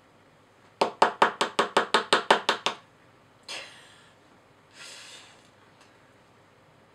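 Small plastic mallet from a dinosaur dig kit tapping a chisel into the crumbly excavation block: about eleven quick, sharp taps in a row, a few a second, followed by two softer scratchy noises of the block being worked.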